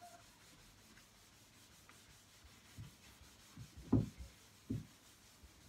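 A wooden wall shelf being dusted by hand: faint rubbing, with a handful of soft knocks in the second half, the loudest about four seconds in.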